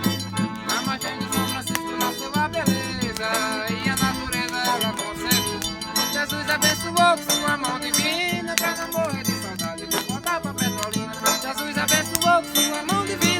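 Forró pé de serra music: an accordion melody over a zabumba bass drum beat, with a triangle ticking steadily on top.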